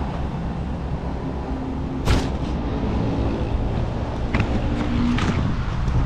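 Strong wind buffeting the microphone of a camera on a moving bicycle: a steady low rumble, with a sharp knock about two seconds in and a smaller one near the end.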